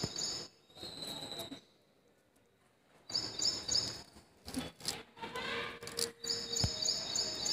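A bird chirps in short runs of quick, repeated high notes, twice, with a near-silent gap before the first run. A few faint clicks and rustles come between the runs.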